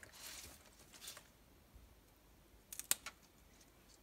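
Water spinach (morning glory) being handled and snapped by hand: a soft rustle of leaves at first, then a couple of sharp, crisp snaps of stems about three quarters of the way through.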